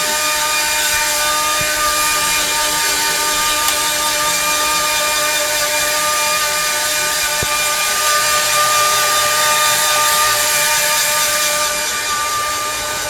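Dog blow dryer running steadily: a loud rush of air over a constant whining motor tone, easing slightly near the end.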